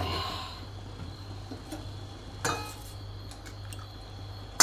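Stainless-steel ladle clinking against a steel cooking pot: a ringing knock fading away at the start, another clink about two and a half seconds in, a few light ticks, and a sharp knock at the very end, over a steady low hum.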